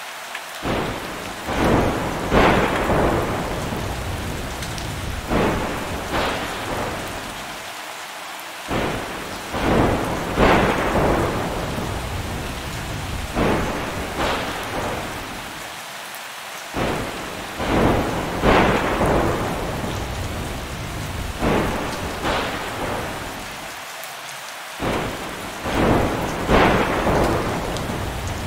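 Steady rain with thunder: sharp cracks that roll off into rumbles come in groups, the same pattern recurring about every eight seconds.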